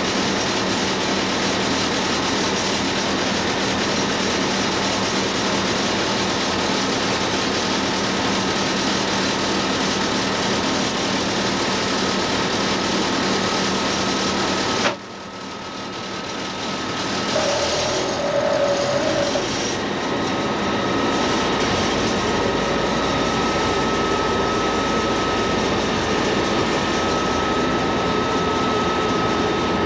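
Steady engine and running noise inside the cab of a British Rail Class 47 diesel locomotive, from its Sulzer 12LDA28 twelve-cylinder engine. About halfway through the sound breaks off abruptly, returns quieter and builds back up over a few seconds. A brief steady tone follows a few seconds later.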